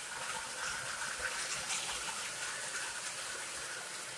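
O gauge model trains running on tubular three-rail track: a steady rolling noise of wheels and motors, with a faint high hum.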